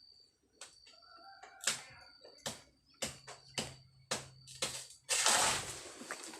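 Sharp knocks, about two a second for some three seconds, then a loud rustling rush about five seconds in.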